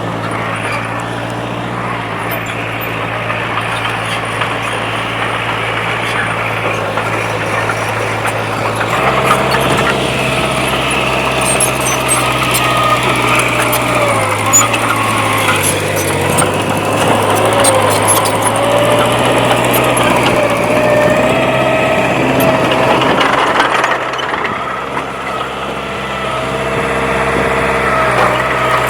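Komatsu D20P bulldozer's diesel engine running under changing load. Its note steps up about nine seconds in and drops back near the end, with a wavering whine and light metallic clinks over it while it works.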